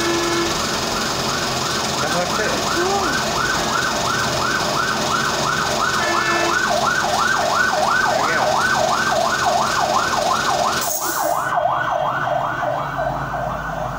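A rapid warbling, siren-like electronic tone that rises and falls about three times a second, over a steady hiss that cuts off suddenly about eleven seconds in.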